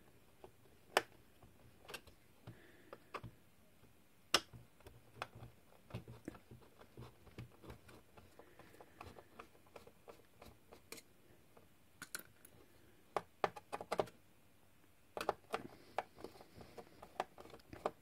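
Hand screwdriver backing out the small screws of a battery clamp: irregular light clicks and ticks as the screwdriver turns and reseats, with a quicker run of clicks near the end.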